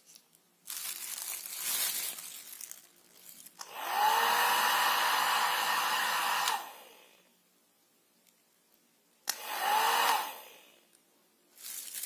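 Nova 1000 W hair dryer switched on: its motor whines up to speed and blows steadily for about three seconds, then it is switched off and winds down. A few seconds later it is switched on again for about a second.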